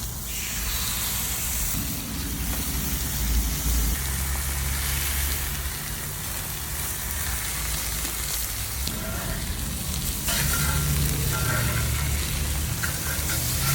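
Chicken sizzling as it fries on the hot side of a propane Blackstone griddle, a steady hiss that grows a little louder about ten seconds in.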